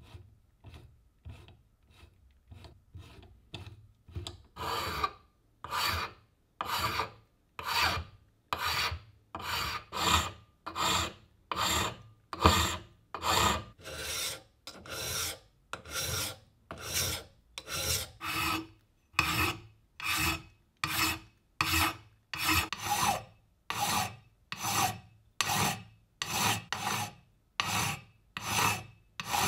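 Hand file rasping on the edge of a cast metal drill stand, filing off casting marks, in steady back-and-forth strokes about one a second. Faint, quicker light ticks come first, with the loud strokes starting about four seconds in.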